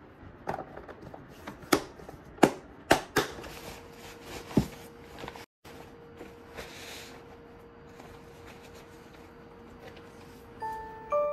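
Plastic food container's lid pressed on and its locking clips snapped shut: a run of sharp plastic clicks over the first five seconds. Then a soft rustle of a canvas drawstring bag being handled.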